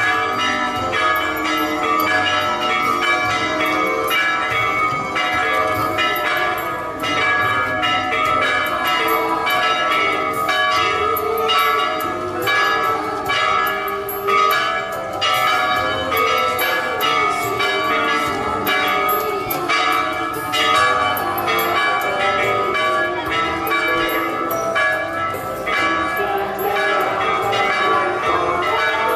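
Church bells ringing continuously, strike after strike, their tones overlapping in a steady peal.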